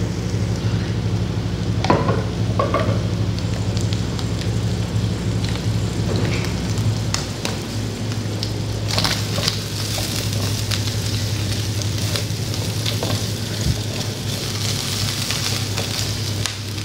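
Cubes of charque (salted dried beef) frying in coconut oil in a pan: a steady sizzle with scattered crackles, the hiss growing brighter from about halfway through as the pan heats.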